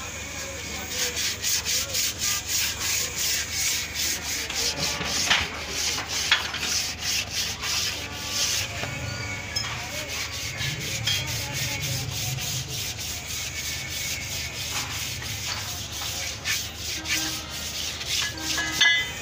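Inner braking surface of a truck brake drum being rubbed down by hand with abrasive paper, in quick back-and-forth scraping strokes a few times a second, with a short pause about halfway through.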